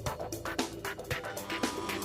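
Electronic background music with a steady percussive beat.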